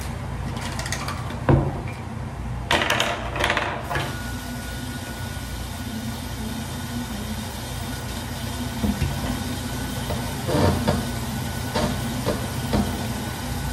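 A manual toothbrush scrubbing teeth in short bursts of strokes near the end, after some handling knocks and rustles, all over a steady low hum.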